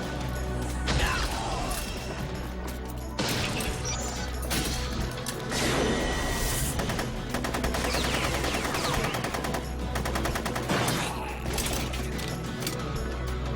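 Animated fight-scene soundtrack: music with repeated gunfire, in rapid runs near the end, and other impact effects.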